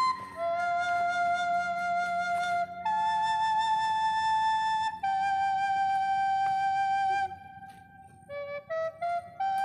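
Background music: a solo flute plays a slow melody of long held notes, slightly wavering, with a quick run of short notes near the end.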